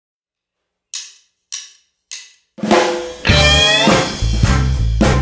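Three short, sharp percussive clicks about half a second apart count in the song, then a blues band comes in loudly with drums, bass and guitar about two and a half seconds in.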